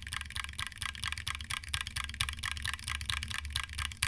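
Rapid, even keystrokes on lubed and filmed Cherry MX Black Hyperglide linear switches, about seven or eight clacks a second, under GMK keycaps in a Tofu 60 aluminum case.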